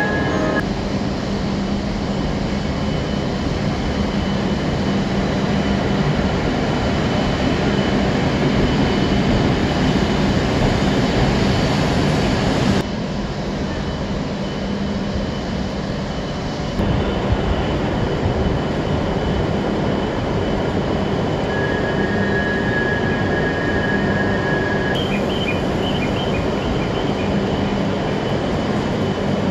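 Steady rush and hum of a Shinkansen station platform around standing E7/W7 series trains, with a low steady hum throughout. About 13 seconds in the sound drops abruptly, then returns about four seconds later, and a faint high steady tone comes in for a few seconds near the two-thirds mark.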